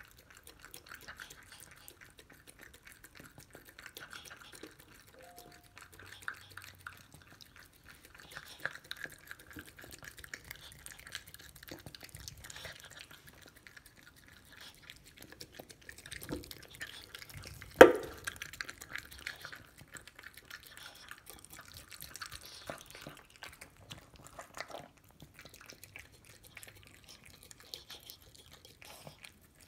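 A chihuahua chewing and licking a hard-boiled egg out of a stainless steel bowl, making a long run of small wet smacking and lapping clicks. One sharp knock about eighteen seconds in is the loudest sound.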